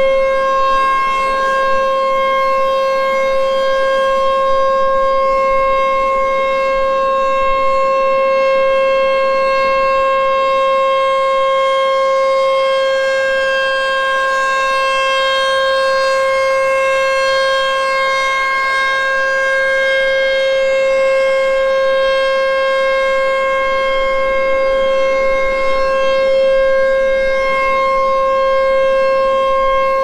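Pole-mounted nuclear power plant emergency warning siren sounding a loud, steady tone that holds one pitch with no rise or fall, during a siren test.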